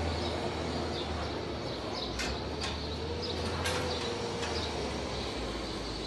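Barn ambience: a steady low hum from ventilation fans, small birds chirping over and over, and three sharp clicks about two to four seconds in.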